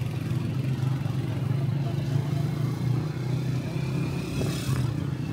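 Motorcycle engine running steadily at an even cruising speed, heard from the bike itself, with the hum of surrounding street traffic.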